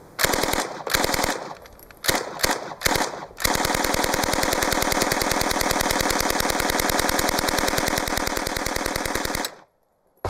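A 9mm M-11 submachine gun with a Lage Suomi drum upper receiver, fed from a Suomi drum magazine, firing full-auto. First come several short bursts, then one long sustained burst of about six seconds that cuts off abruptly near the end.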